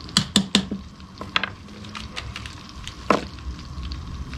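Battered pejerrey fillets frying in oil in a pan, a steady sizzle, with sharp clicks of a utensil against a steel pot as butter goes onto boiled potatoes: three quick clicks at the start, then two more, the last about three seconds in.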